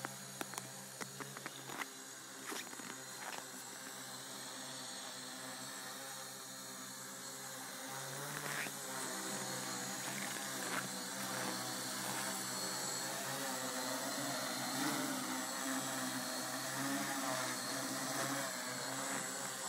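Scratch-built tricopter's three electric motors and propellers buzzing in flight, several pitched whines drifting up and down as it holds its hover. It grows louder over the last several seconds, with a few sharp clicks in the first three seconds.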